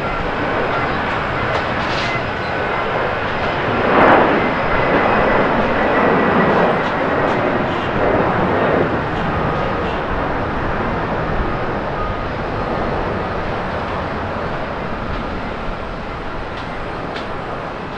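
Twin jet engines of a Japan Airlines Boeing 767-300ER at takeoff thrust as the airliner lifts off and climbs away. The steady jet noise swells about four seconds in, with a faint high whine over it, then slowly fades as the aircraft recedes.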